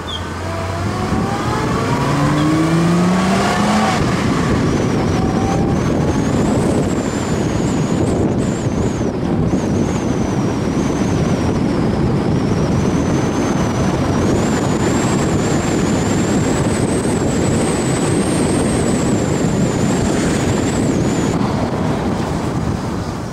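Holden Commodore's engine rising in pitch as the car accelerates over the first few seconds, then buried under a steady rush of wind and road noise on the outside-mounted camera's microphone. A thin high whistle wavers above the rush from about five seconds in until near the end.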